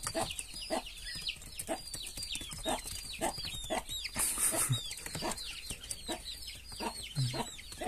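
Penned quail and young fowl peeping: a steady stream of short, high chirps, each falling in pitch, several a second and often overlapping.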